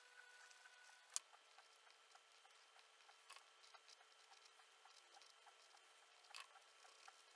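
Near silence: faint room hum with light ticks and taps, a sharp click a little over a second in and two softer clicks later.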